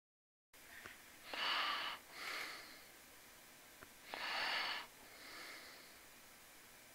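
A person breathing, starting about half a second in: two loud breaths about three seconds apart, each followed by a softer one, with a few faint clicks.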